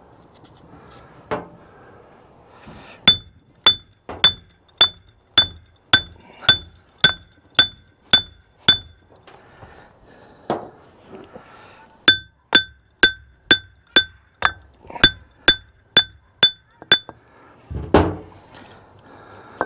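Hammer blows on a hydraulic drive motor's steel brake housing, driving it off a roll pin that holds it: two runs of about ten ringing strikes at roughly two a second, with a heavier, duller knock near the end.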